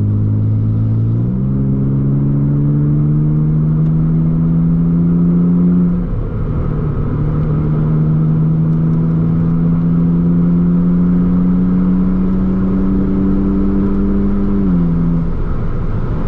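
BMW Z4's 3.0-litre six-cylinder engine heard from inside the cabin, pulling hard under acceleration. Its pitch steps up about a second in and climbs steadily, falls at a gear change about six seconds in, then climbs again to another gear change near the end.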